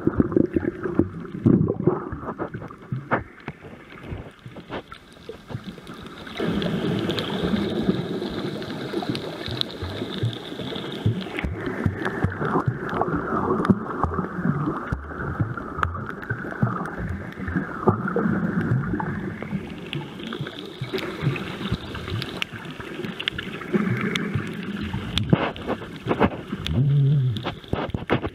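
Underwater sound picked up by a snorkeler's camera: water rushing and gurgling with many small clicks and knocks, turning into a denser, louder steady rush about six seconds in.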